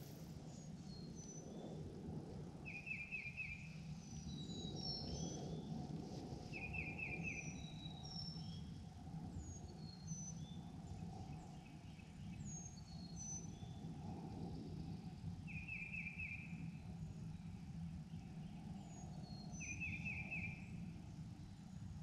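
Woodland songbirds chirping, with a short rapid trill of a few quick notes repeated about four times, over a steady low background rumble.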